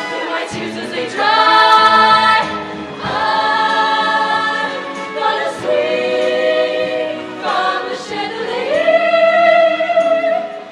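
Show choir singing long sustained chords, several voices in harmony, rising to a loud held high note near the end.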